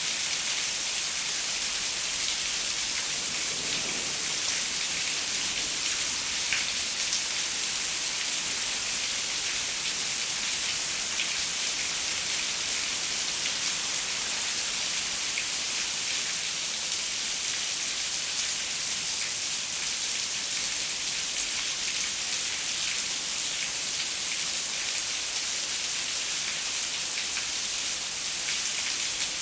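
Steady rain falling on a window: an even hiss made up of many small drop hits.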